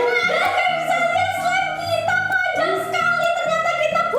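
Background music: a high female voice singing a melody over a steady bass line.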